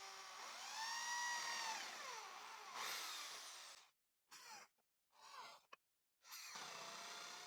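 Electric drill boring small pilot holes and countersinking them in wood. The motor whine rises and falls in pitch in several short runs as the trigger is squeezed and let go, and it is fairly faint.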